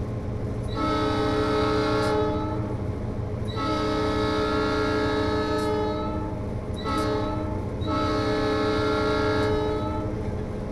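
Diesel-style chord horn from an HO scale model locomotive's sound system, blown long, long, short, long: the grade-crossing signal. A steady low engine rumble runs underneath.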